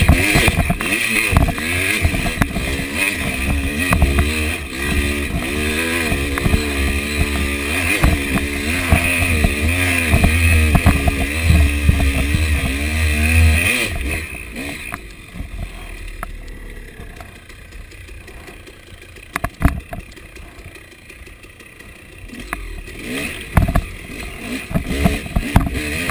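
KTM 300 two-stroke dirt bike engine revving hard under load while climbing a steep hill, its pitch wavering up and down as the throttle works. About fourteen seconds in it drops off to a much quieter, lower running with scattered knocks and rattles, then picks up again near the end.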